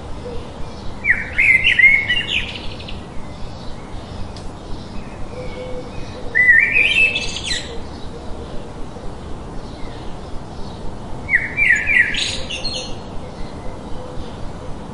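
A songbird singing a short phrase of quickly rising notes, three times about five seconds apart, with fainter quick chirps repeating in between, over a steady rushing hiss.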